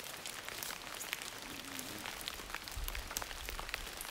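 Rain falling on jungle foliage: a steady hiss of many small drop ticks. A brief low rumble comes about three seconds in.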